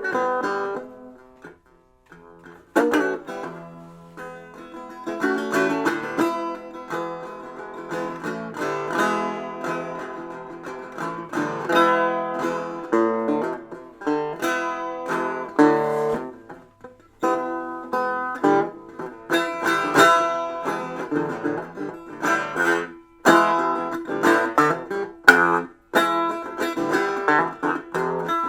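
Plucked string instrument, guitar-like, playing quick runs of notes and chords, with a brief pause about a second in and two short breaks near the end.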